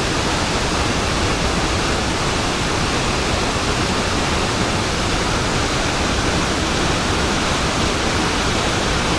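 Steady rush of river water running fast over rocks, an even hiss with no breaks.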